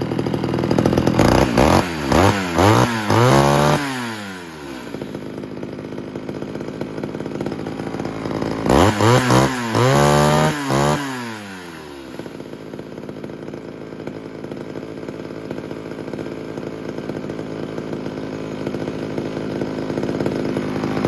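Homelite Super XL two-stroke chainsaw engine idling and being revved twice, each time in a quick run of throttle blips that rise and fall in pitch before settling back to a steady idle.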